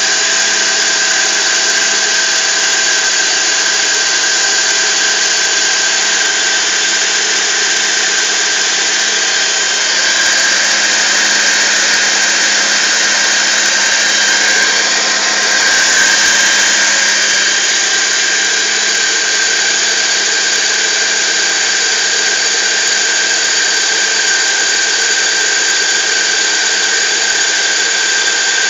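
BMW E46 318i's 1.9-litre four-cylinder petrol engine running after a cold start, with a steady high-pitched whine over it: the strange pipe-like noise the owner hears from the passenger side of the engine bay, which always appears on a cold start.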